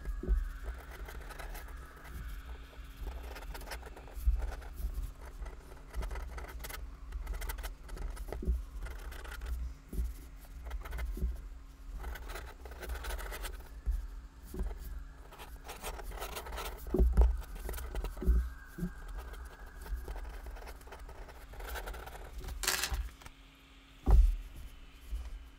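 Pen nib scratching and scraping over paper in quick, uneven sketching strokes, with a few dull knocks against the desk, the loudest near the end.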